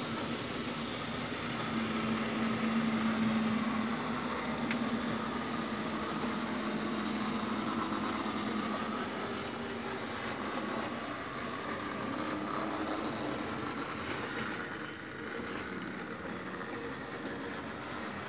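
Model railway locomotive, a model Class 60 diesel, running along the track hauling empty stone hoppers: a steady small electric motor whirr with a low hum.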